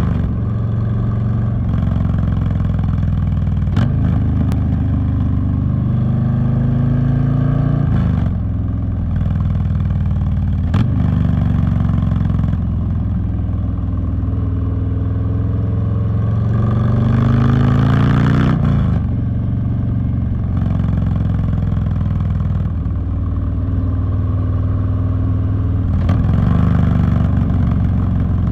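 Harley-Davidson Street Bob's V-twin engine pulling on the road. Its pitch climbs in several long sweeps, each ending in a sudden drop, as it accelerates and shifts up through the gears.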